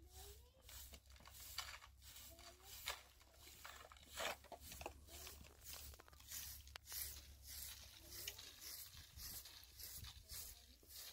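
Faint, repeated scraping strokes of a hand tool, such as a trowel worked over wet cement, coming unevenly at about two a second.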